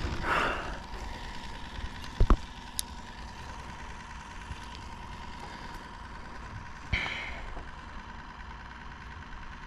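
A faint steady mechanical hum with a thin whine, with a sharp double knock about two seconds in and a short rush of noise about seven seconds in.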